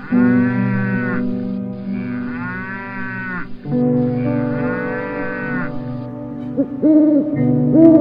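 Cow mooing three times, each call about a second long with a rising-then-falling arc. Near the end, a run of short, low hooting calls follows.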